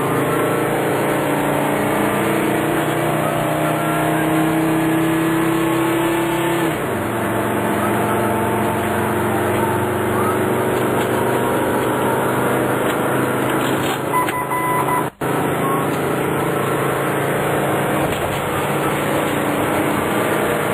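Ambulance engine and road noise heard inside the cab while driving at speed. The engine note rises slowly and drops at a gear change about seven seconds in, then runs steadily. The sound cuts out for a moment about fifteen seconds in.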